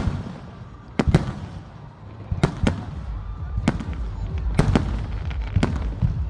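Fireworks display: aerial shells bursting in sharp bangs, about eight or nine at irregular intervals, some in quick pairs, over a continuous low rumble.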